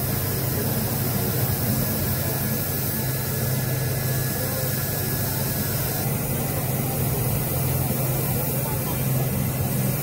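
Steady low hum of running workshop machinery, with an even hiss over it that shifts slightly about six seconds in.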